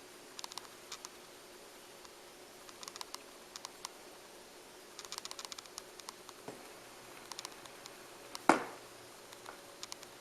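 BIC 980 belt-drive automatic turntable with the music stopped: scattered clusters of soft mechanical clicks over a faint steady hum, and one louder thump about eight and a half seconds in.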